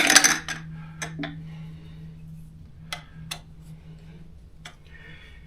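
Scattered small metallic clicks and clinks, a few sharp ones spread over several seconds, as small nuts and bolts are handled and threaded into a scooter frame, over a steady low hum.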